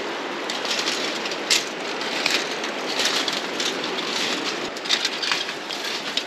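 Electric mountain bike rattling and clanking while crossing a narrow swing bridge, with irregular sharp knocks over a steady rushing noise.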